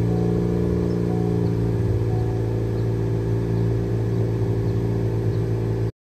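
11th-generation Honda Civic Si's 1.5-litre turbocharged four-cylinder idling steadily through its stock (OEM) exhaust. The sound cuts off suddenly near the end.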